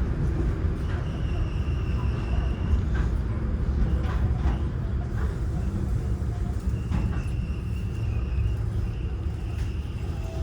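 Interior sound of an old Seoul Subway Line 4 train with Toshiba GTO-VVVF traction, running between stations: a steady low rumble of wheels on rail with scattered irregular clicks, and a high steady inverter whine that comes in about a second in, drops out, and returns near the end.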